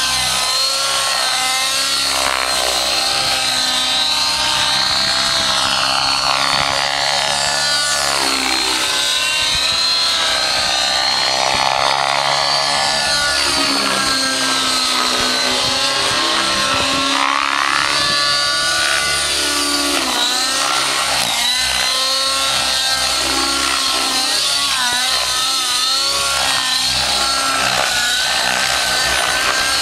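Rave 90 nitro radio-controlled helicopter flying aerobatics: the glow engine's buzz and the rotor, with the pitch sweeping up and down over and over as the model is thrown through its manoeuvres.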